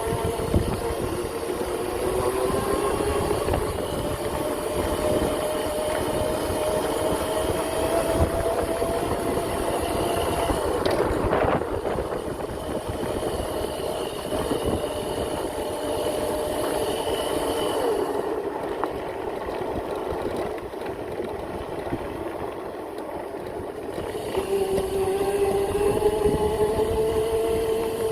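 The converted 5000 W electric motor of a Razor MX650 electric dirt bike whines under throttle while riding, its pitch climbing slowly over the first ten seconds. It drops away for several seconds past the middle as the rider eases off, then picks up again near the end. Knocks and rattles from the rough ground run under it.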